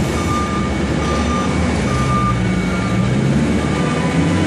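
Propane forklift's engine running as it backs out of a semi trailer, its reversing alarm beeping about once a second over the engine hum.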